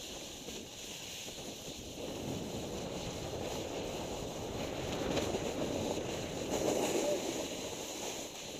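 A snowboard sliding and carving over packed snow: a continuous scraping hiss that gets louder about five to seven seconds in. Wind is blowing on the microphone.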